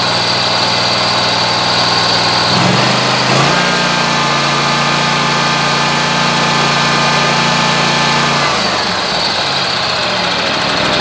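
Scag Tiger Cat zero-turn mower engine running. It idles, revs up about three seconds in, holds the higher speed for about five seconds, then drops back to idle near the end.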